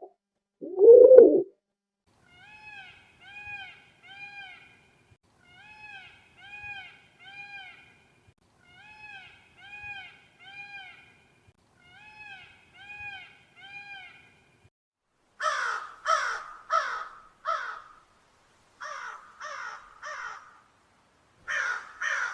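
Crow cawing: harsh caws in bunches of three or four over the last third. Before that comes a repeated call of three rising-and-falling whistled notes, given four times, and at the very start a single low cooing call.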